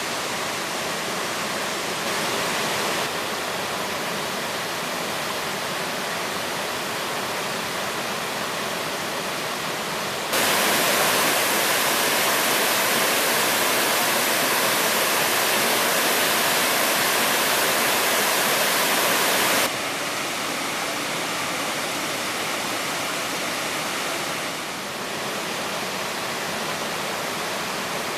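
Waterfall rushing: a steady, dense hiss of falling water that jumps abruptly louder about ten seconds in and drops back just as suddenly about ten seconds later.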